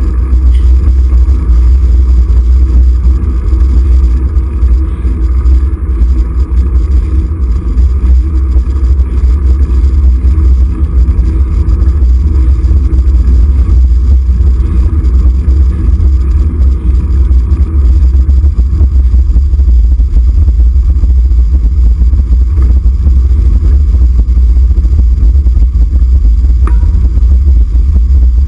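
Steady, loud wind rumble on a handlebar-mounted camera's microphone during a ride, mixed with road and tyre noise.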